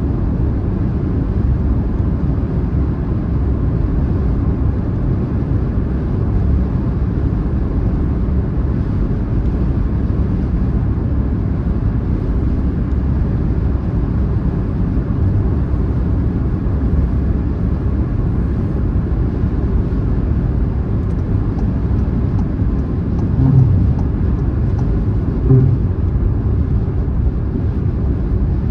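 Car driving at steady motorway speed: a continuous deep rumble of tyre, road and engine noise. Two brief low thumps come near the end.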